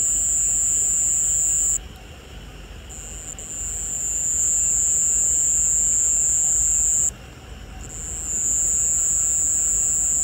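A cricket singing one continuous high-pitched trill. It breaks off abruptly about two seconds in and again about seven seconds in, each time starting up again within a second and swelling back to full strength.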